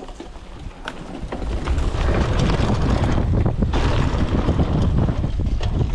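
Wind buffeting the microphone of a chest-mounted camera, mixed with the tyre rumble of a mountain bike rolling down a dirt forest trail, building up over the first two seconds as the bike gathers speed, with a few knocks along the way.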